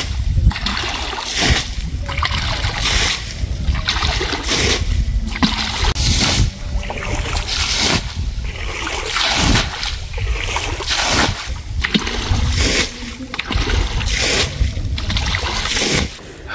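Muddy water being bailed out of a shallow pool with a plastic bucket: repeated scoops and splashes, about one a second, as each bucketful is dumped onto the weeds around it to drain the pool.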